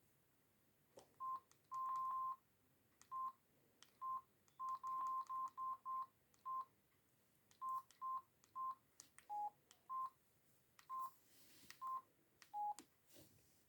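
Mobile phone keypad beeping as keys are pressed: about eighteen short single-pitch beeps at an uneven pace. One is held a little longer about two seconds in, and two near the end are slightly lower in pitch. Faint clicks come in between.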